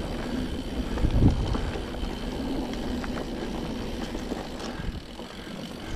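Mountain bike rolling over a trail, a continuous low rumble of tyres and rattling bike, with a heavy bump about a second in.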